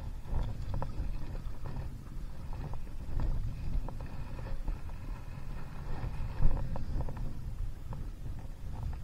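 Wind rumbling on the microphone out on open water, with scattered light splashes and knocks from paddling a stand-up paddleboard.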